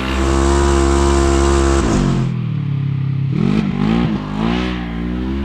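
2024 Polaris RZR XP 1000's parallel-twin engine breathing through an aftermarket GGB Trail muffler, being revved. It holds a steady high rev, drops off about two seconds in, then takes a couple of quick throttle blips and settles at a moderate rev.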